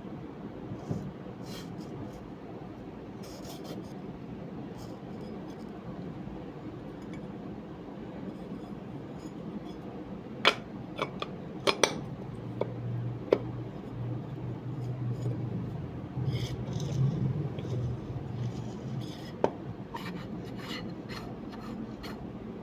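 Small hard parts being handled, rubbed and scraped during hands-on repair of a 12-volt DC air cooler motor, with a few sharp clicks and clinks about ten to thirteen seconds in and a low steady hum through the middle stretch.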